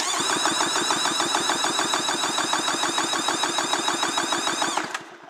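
1994 Polaris SL 750 three-cylinder two-stroke engine cranked over by its electric starter, a fast, even rhythm of pulses that stops suddenly about five seconds in. This is a compression test on the centre cylinder, the gauge climbing to 125 PSI, even with the other cylinders.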